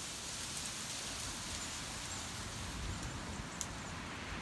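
Steady rush of wind-driven rain and gusting wind through the tossing tree leaves, with a few faint ticks scattered through it.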